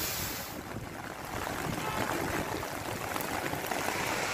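Floodwater rushing and splashing on a waterlogged street in heavy rain, a steady watery hiss.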